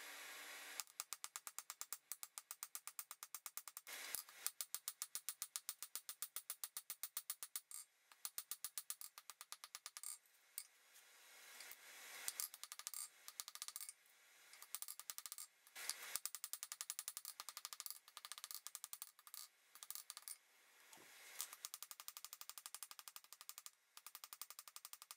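Hand hammer striking red-hot steel stock on a steel anvil during forging: a fast, even run of sharp metallic clinks, broken by a few short pauses.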